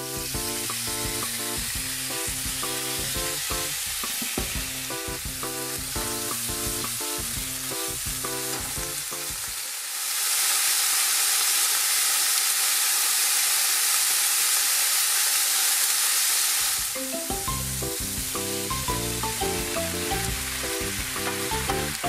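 Background music with a steady beat. About ten seconds in, the music stops and thinly sliced pork belly is heard sizzling in a nonstick frying pan for about seven seconds, an even bright hiss, before the music comes back.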